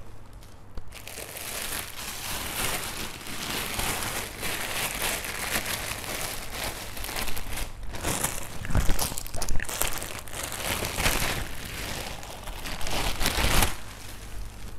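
Clear plastic bag crinkling and rustling as a pair of sneakers is worked out of it by hand. The loudest crinkles come about nine seconds in and again near the end.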